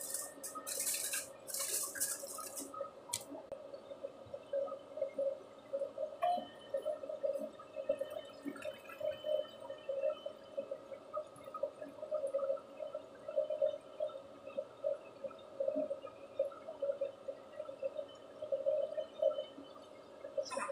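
Aluminium foil crinkling for the first couple of seconds as it is pressed over a baking tray, then quiet, irregular gurgling of water, about one or two bubbles a second.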